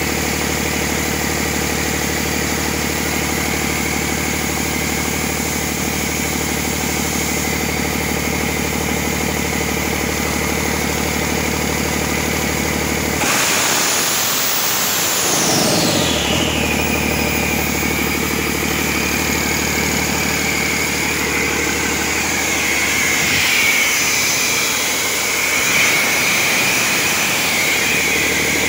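Cummins ISL 8.9-litre six-cylinder diesel running at idle, steady and even. About halfway through it is revved, and its pitch falls back over a few seconds, with a turbo whine dropping and then holding as a steady high whine.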